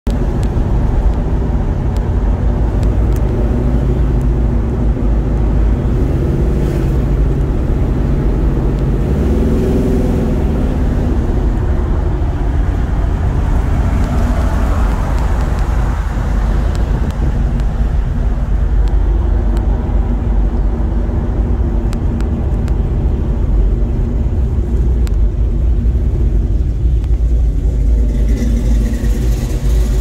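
Classic car engine running as the car cruises in traffic, heard from inside the car: a steady low rumble with road and wind noise. The engine note rises and falls twice, briefly, about six and about nine seconds in.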